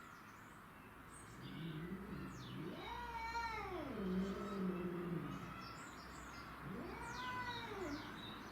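Domestic cat yowling: two long drawn-out meows, each rising then falling in pitch, about three seconds and about seven seconds in, the first sliding down into a low held note.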